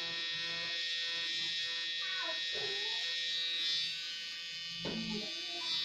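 Permanent-makeup tattoo pen running with a steady high-pitched buzz as its needle traces eyeliner on a practice skin pad.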